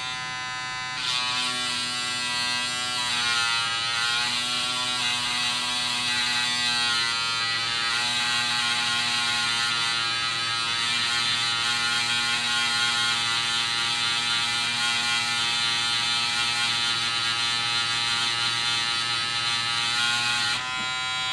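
Mini linear electric sander pen buzzing at full speed. About a second in, its coarse-grit sandpaper tip is pressed onto a plastic model kit nub, adding a scratchy sanding noise, and the buzz's pitch bends up and down for a couple of seconds before it steadies. Near the end the tip comes off the plastic and only the motor's buzz is left.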